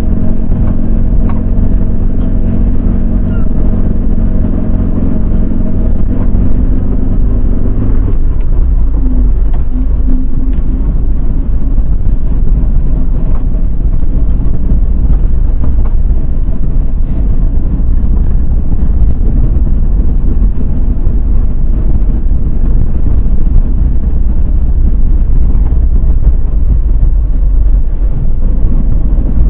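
Car driving, heard from inside the cabin: a steady low rumble of road and engine noise. For the first eight seconds or so a steady engine hum sits on top of it; after that mostly the low road rumble remains.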